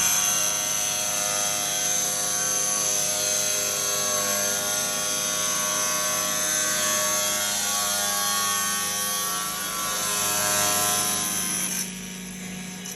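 Tile-cutting machine's diamond blade cutting through a stone slab, a steady high-pitched whine over grinding noise. About twelve seconds in the cutting noise stops abruptly, leaving a quieter low hum from the machine.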